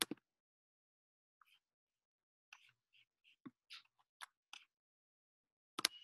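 Scattered faint clicks and taps of a computer mouse and keyboard, with a sharper click at the start and another near the end.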